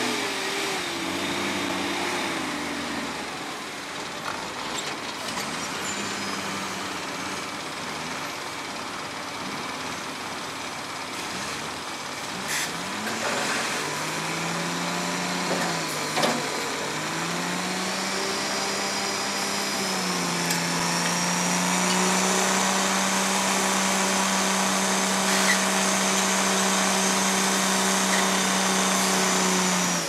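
Diesel engine of a wheeled log loader revving up and down as it works, then held at high revs with a steady high hydraulic whine as its grapple lifts a load of logs off a log truck. A couple of knocks come around the middle.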